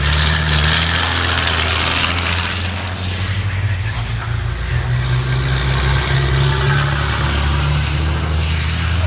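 Turbo-diesel racing trucks running at speed on the circuit: a loud, steady low engine drone throughout. A faint high whistle slides down in pitch near the start and again near the end.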